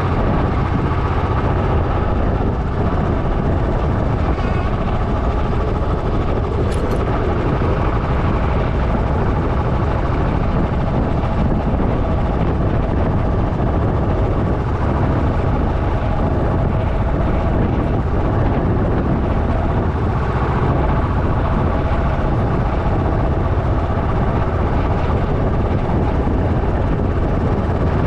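Motorcycle running at a steady cruise on the road, its engine mixed with wind rushing over the action camera's microphone. The noise is loud and even throughout, heaviest in the low end.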